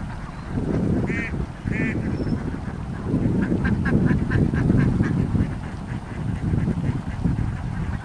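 Ducks quacking: two drawn-out calls about a second in, then a quick run of short quacks, about four a second, in the middle, over a constant low rumble.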